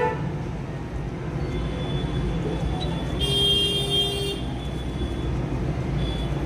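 Steady road-traffic rumble, with a vehicle horn sounding once for about a second near the middle.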